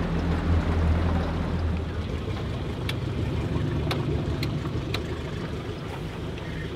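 Tiller-steered outboard motor on a duck boat running steadily, its sound changing about two seconds in, with a few light ticks near the middle.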